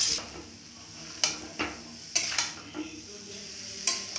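Long metal spoon scraping and clinking against a metal pan, about seven strokes, as diced pumpkin is stirred. A steady sizzle of the pumpkin frying in oil runs underneath.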